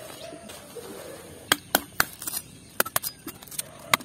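Sharp, irregular clicks of a metal blade striking hard, dry soil. They start about a second and a half in: half a dozen strikes, some in quick pairs.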